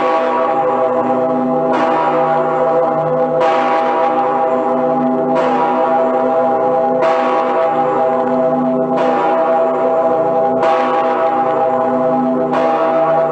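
Cologne Cathedral's St. Peter's Bell (Petersglocke) swinging alone and ringing. The clapper strikes about every two seconds, about eight strokes in all, and each stroke hums on into the next.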